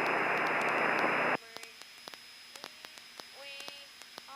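Steady radio static hiss through the aircraft headset, cutting off abruptly about a second and a half in. Faint clicks and faint humming follow.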